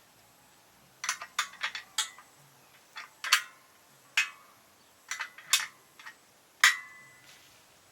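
A dozen or so irregular sharp clinks and knocks of hard objects struck together, some ringing briefly, the loudest about two-thirds of the way through.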